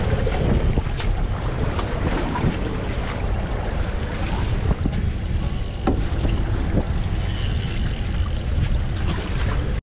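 Steady wind buffeting the microphone aboard a boat on open sea, with a low rumble beneath and a few faint clicks.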